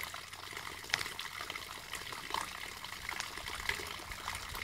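Faint water trickling and lapping, with a few small scattered clicks.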